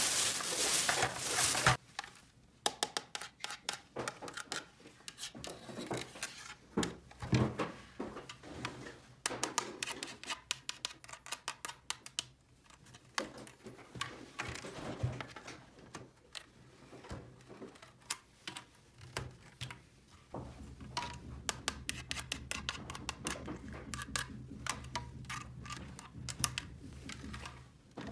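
Small toy pieces handled by hand: a brief rustle at the start, then a long run of light, irregular clicks and taps. A faint low hum comes in about two-thirds of the way through.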